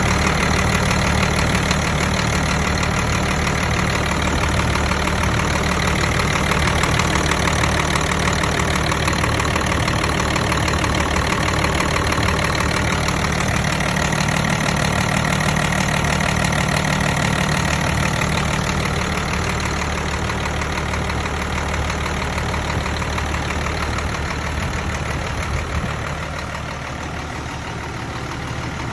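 Hino diesel engine idling steadily, dropping slightly in level near the end.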